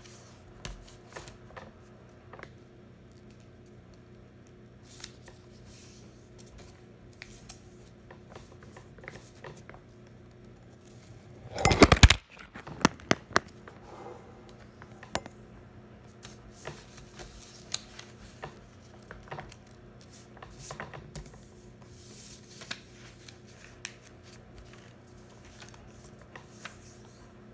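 A sheet of white paper being folded and creased by hand on a tabletop: scattered rustling, sliding and scraping as fingers press the folds flat, with one louder burst of rustling about halfway through.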